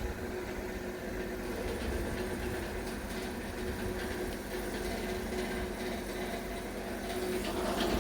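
Mill machinery running steadily, a constant droning hum with a low rumble, growing louder near the end.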